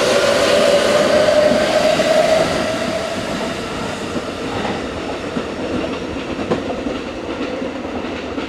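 Electric commuter train pulling away from the platform: its traction motors whine, rising in pitch for the first two or three seconds as it accelerates, then fade as it leaves. The rumble of the wheels dies away after that, with a few clacks over the rail joints.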